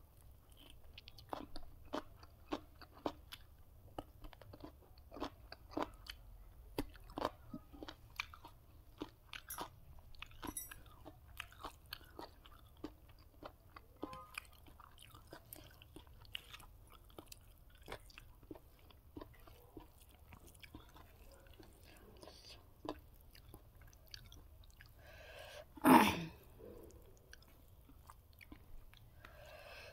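A person chewing and crunching food at the microphone: many small, irregular crunchy clicks, thicker in the first half. One brief, much louder sound stands out about four seconds before the end.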